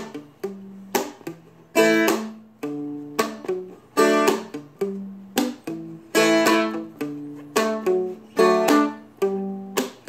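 Seagull Merlin, a small four-string diatonic instrument, strummed with a flat pick: a repeating chord progression, each strum striking sharply and ringing down before the next.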